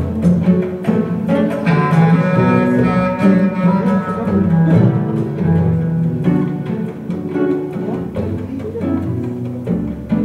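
Recorded music with low string instruments, bowed and plucked, played through AudioMachina loudspeakers driven by Einstein amplifiers.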